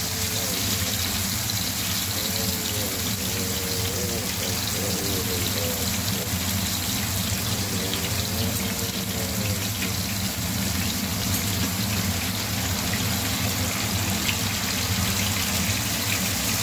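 Marinated chicken pieces shallow-frying in hot oil on an iron tava: a steady sizzle.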